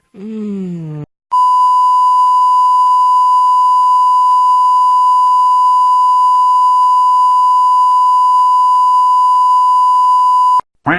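A single long, steady, loud beep tone, the standard censor bleep, held for about nine seconds and cut off abruptly. Just before it, a short falling voice-like sound effect; near the end, a brief rising sweep.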